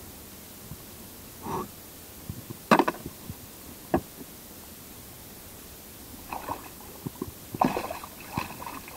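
A hooked pike thrashing and splashing in the water beside the kayak as it is held alongside, with a sharp knock about three seconds in and a click a second later; the splashing comes in a flurry in the last few seconds.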